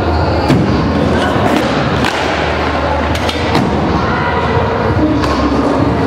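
Stunt scooter wheels rolling on wooden skatepark ramps, with several sharp knocks and thuds of landings and deck impacts.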